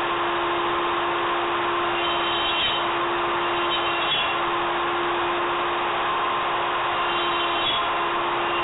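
The router spindle of a homemade CNC router running with a steady whine as it mills MDF, the tone briefly breaking three times as the machine moves along its cut.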